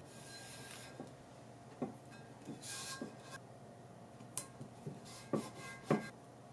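Blue painter's tape being pulled and rubbed down onto the cast-iron platen of a book press: two short rasping pulls of tape and scattered light taps of fingers pressing it down.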